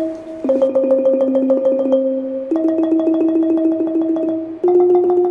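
Instrumental background music: held chords that change about every two seconds, with quick evenly repeated notes running over them.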